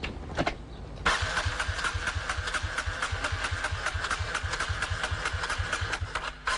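Suzuki 350cc motorcycle engine starting, catching about a second in and then idling with an even, pulsing beat. It dips briefly near the end and picks up again.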